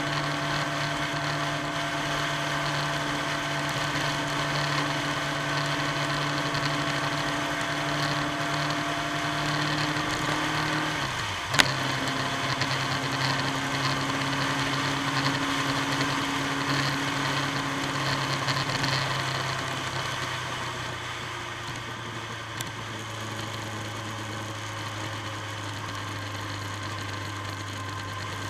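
Motorcycle engine running at steady road speed under wind noise. About halfway through, the engine note drops with a sharp click, an upshift. In the last third the engine gets quieter and lower as the throttle eases off.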